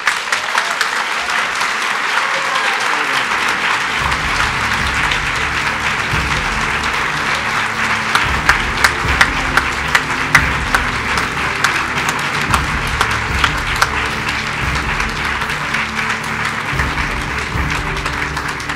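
An audience applauding steadily, many hands clapping together. Music comes in low underneath about four seconds in.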